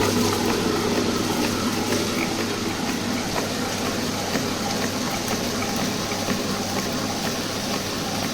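Comport Plus smart wet grinder running steadily, its inner grinding stone turning in a drum that stays still as it grinds soaked idli rice with water into batter: a constant motor hum under a wet, churning swish.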